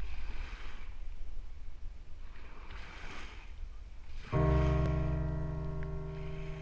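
Small waves washing up on a sandy beach, two soft swells of surf over a low rumble. About four seconds in, a held music chord starts suddenly and carries on, slowly fading.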